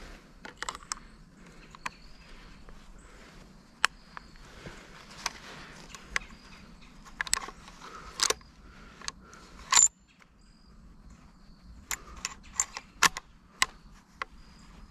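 Scattered metallic clicks and rattles from a scoped hunting rifle being handled, its magazine and sling fittings knocking, with the sharpest click about two-thirds of the way through.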